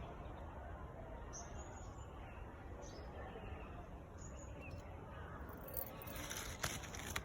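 Outdoor background with a steady low rumble and a few faint, brief high bird chirps every second or so, then a burst of rustling and sharp clicks near the end.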